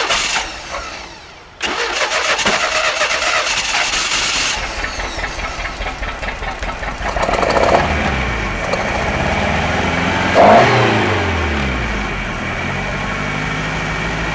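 MerCruiser 3.0 four-cylinder sterndrive engine cranking on the starter, catching after several seconds, revving up and back down briefly, then settling into a steady idle. The shop says the engine is not running correctly.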